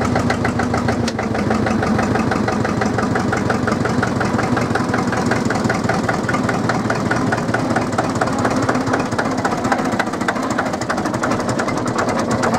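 Drott 100 loader's diesel engine running at a steady idle with a rhythmic knocking clatter, still cold and smoking heavily just after a cold start.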